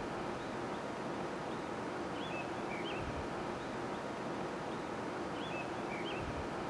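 Steady outdoor hiss with faint, short, high chirps that come back in the same pattern about every three seconds.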